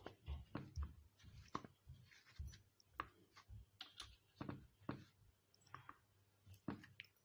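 Hands dredging raw chicken pieces in seeded flour in a metal bowl: faint, irregular soft pats and clicks, about one or two a second.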